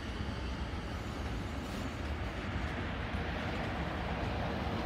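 Loaded container wagons of a freight train rolling past, a steady rumble of steel wheels on the rails.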